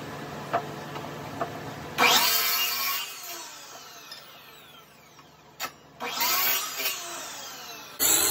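Electric mitre saw: the motor runs with a steady hum, the blade cuts into a thick block of wood about two seconds in, and the motor then winds down with a falling pitch. A click follows, then a second brief burst of the saw that also winds down, and a louder sawing sound starts right at the end.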